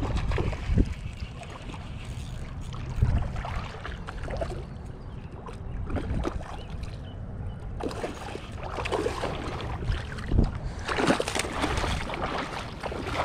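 Wind rumbling on the microphone, with knocks and handling noise. Near the end comes water splashing as a small fish is drawn to hand through shallow river water.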